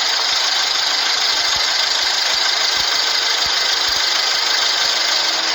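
Engine running steadily with its radiator drained of coolant water, which the owner says is not overheating.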